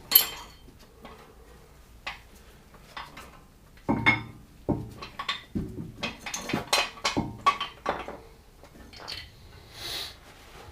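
Metal tools and brake parts clinking and knocking against each other while they are handled: a string of sharp, irregular taps and clatters, busiest in the middle, with a short scrape near the end.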